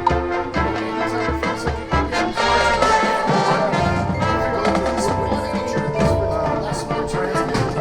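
Marching band playing its field show: sustained wind and brass notes over drums, with mallet percussion such as marimba and xylophone standing out.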